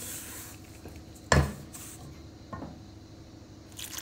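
A spoon stirring semolina bread dough in a stainless steel mixing bowl, knocking sharply against the metal bowl once and then more faintly, with soft scraping in between.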